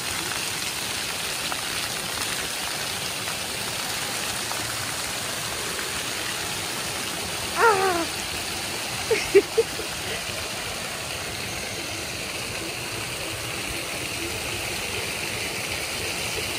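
Jets of a dry-deck floor fountain spraying and splashing steadily onto wet paving. About halfway through there is a short cry that falls in pitch, and a moment later a few short sharp sounds.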